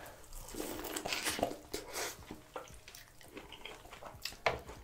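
Biting into and chewing corn on the cob: crisp crunches of kernels and wet mouth sounds, busiest in the first two seconds, with a sharp click about four and a half seconds in.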